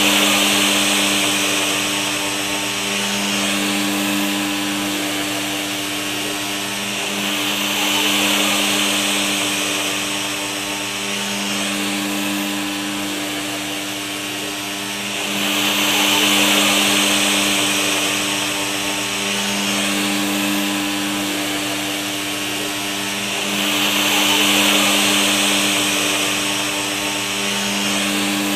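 Aircut handheld vacuum haircutting system running: a steady motor hum under rushing suction air that swells and fades several times.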